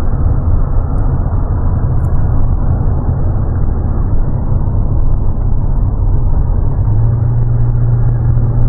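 Car in motion heard from inside the cabin: a steady low rumble of road and engine noise, with a low hum growing stronger about seven seconds in.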